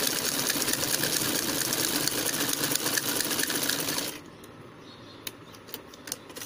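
Sewing machine running, stitching through fabric with a fast, even clatter that stops abruptly about four seconds in, followed by a few light clicks.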